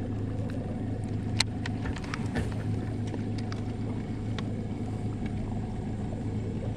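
Bass boat's trolling motor running with a steady low hum, with a few light clicks on top, the sharpest about a second and a half in.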